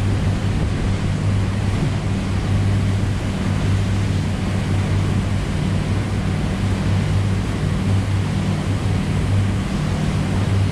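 Sea Ray 440 Express Bridge's diesel engines running steadily underway, a low drone under a constant rush of wind and water.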